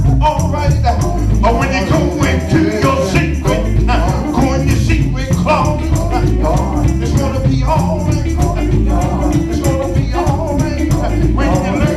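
Live gospel music: a male singer singing into an amplified microphone over a band with electric guitar, heavy bass and a steady beat of shaker-like percussion.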